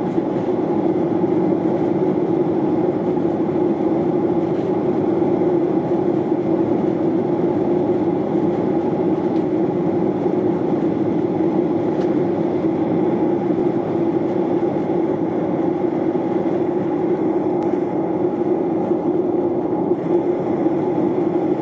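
Steady cabin noise inside a Boeing 737-800 airliner in flight: engine and airflow noise, even and unbroken.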